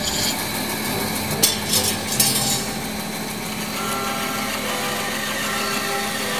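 A 1954 Northfield 27-inch bandsaw running steadily on its 5-horsepower three-phase motor, driven by a VFD at 60 Hz. A few sharp knocks and clatters come between about a second and a half and two seconds in.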